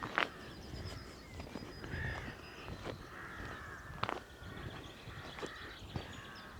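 Crows cawing repeatedly, going mad, several calls overlapping. A couple of sharp clicks cut through, a moment in and about four seconds in.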